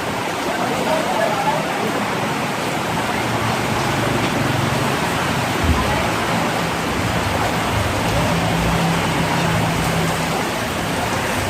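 Steady rain falling, an even rushing hiss, with voices in the background and a low steady hum that comes in a few seconds in.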